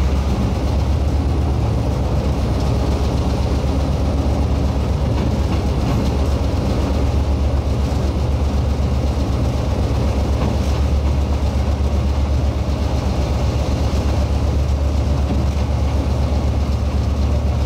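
Diesel-electric locomotive engine running steadily, a deep continuous drone with a fast low throb.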